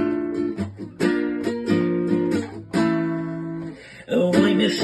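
Acoustic guitar accompaniment of a song: strummed chords struck about a second apart and left to ring, the last one fading out. A singing voice comes in near the end.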